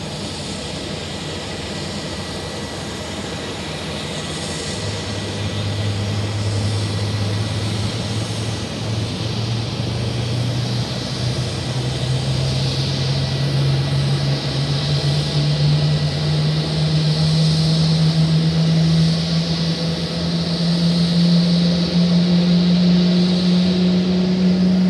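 Boeing 777-300ER's GE90-115B turbofan engine starting and spooling up. A low hum appears about five seconds in and rises slowly and steadily in pitch as it grows louder, over a steady rushing hiss.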